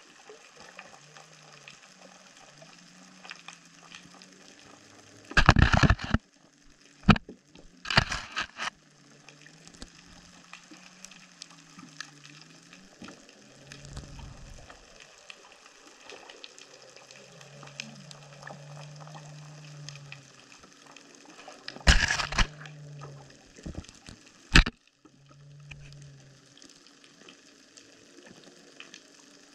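Underwater sound picked up by a camera on a reef: a constant fine crackling, with a low wavering hum at times. Loud short knocks and scrapes break in about five to eight seconds in and again around twenty-two and twenty-four seconds in.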